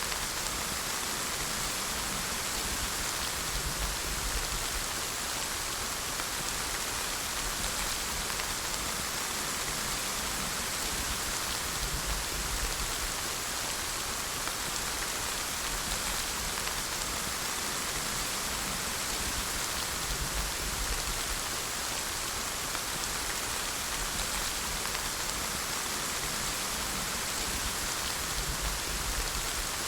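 Steady rain falling, an even hiss of raindrops on surfaces with no change in strength.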